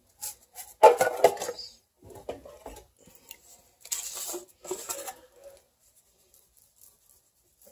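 Plastic spice shaker being handled: a cluster of clicks and rattles about a second in as it is picked up and opened, then shaken over the meat a few times around four to five seconds in, with a light hissing patter.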